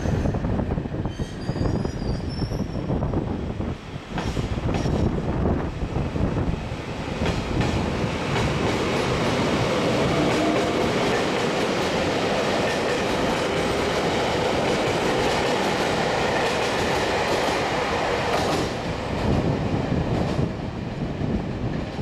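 JR Hokkaido 789 series electric express train pulling out and running past on the nearby track: rail noise builds with repeated clicks of the wheels, holds steady from about eight seconds in, and falls away near the end as the last cars go by.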